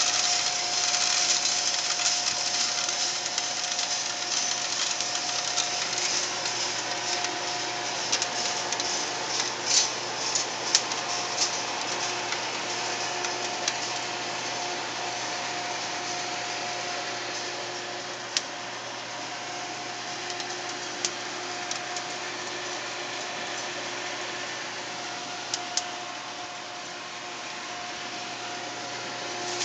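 Calutech drum coffee roaster running with its cooling tray: a steady machine drone and hum under the swish and rattle of roasted beans being swept by the stirring arms over the perforated screen. The bean noise is loudest at first and slowly dies away, with a few sharp clicks scattered through.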